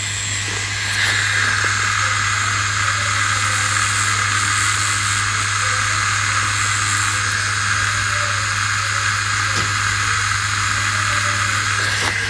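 Rotary tattoo machine running steadily at 7.5 volts with a 5-round-liner cartridge needle: a constant buzz with a hiss over it.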